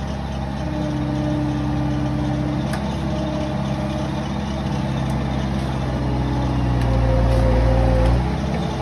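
Terex compact track loader's engine working under load as the loader forces its toothed bucket against a tree stump. The engine note grows louder toward the end, then eases off sharply about eight seconds in.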